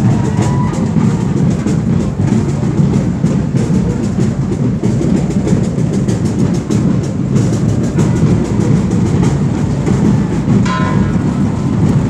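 Traditional Mexican danza percussion from a street procession of costumed dancers: a steady drum beat under dense, rapid clattering.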